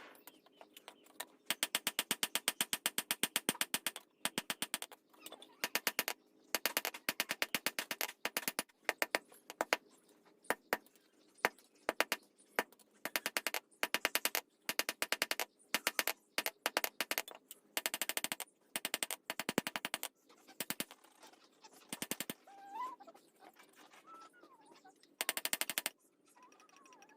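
Rapid bursts of metal-on-metal hammer strikes, many blows a second with short pauses between bursts, as a blacksmith forges a blade on an anvil.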